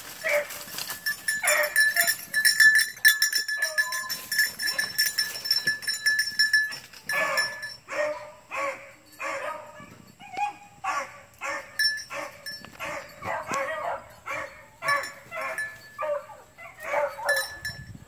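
A puppy barking in short, quick yelps, about two a second through the second half, fewer and spaced out earlier over a steady high tone.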